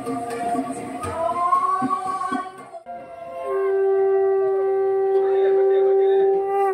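Women singing a song into microphones with tabla accompaniment, their voices sliding in pitch over the drum strokes. After a short break about three seconds in, one long steady note is held.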